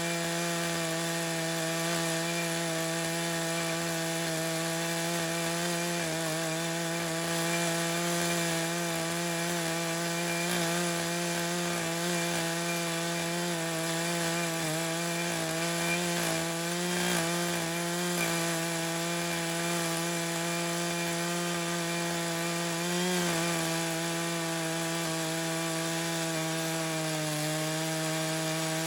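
Echo CS-590 two-stroke chainsaw with a ripping chain running at full throttle, rip-cutting a red oak cant lengthwise into slabs in a chainsaw mill. The engine note holds steady, sagging slightly in pitch a few times as the cut loads it.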